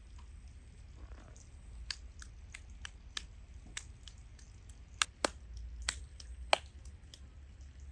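A series of irregular sharp clicks and snaps, about fifteen, coming quicker and louder from about five seconds in, over a low steady hum.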